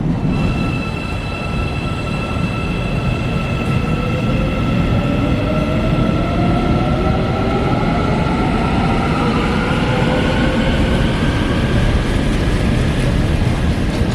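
Electric commuter train running, with a steady low rumble and high electric tones. From about four seconds in, a whine climbs steadily in pitch as the train picks up speed.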